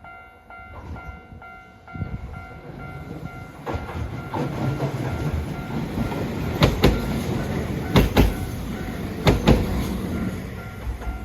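A train passing close by, its running rumble building up, then three sharp double clacks about a second and a half apart as its wheels cross rail joints.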